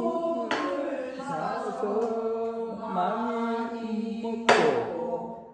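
Pansori singing: a voice holds a long, wavering, sustained sung line, with a sharp struck accent about four and a half seconds in.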